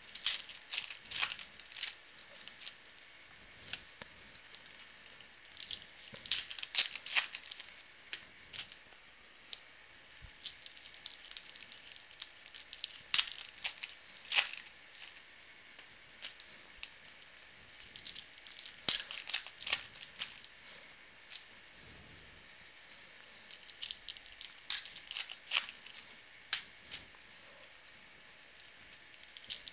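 Foil football trading-card pack wrappers torn open and crinkled by hand, in scattered bursts of crackling with quiet gaps between.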